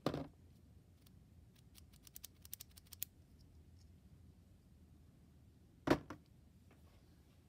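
Small clicks and knocks from handling a Ronson Standard petrol lighter: a knock at the start, a quick run of light metallic clicks about two seconds in, and one louder knock about six seconds in.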